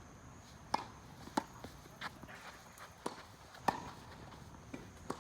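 Tennis ball impacts: a string of sharp knocks from the ball on racket strings and court, spaced irregularly about half a second to a second apart.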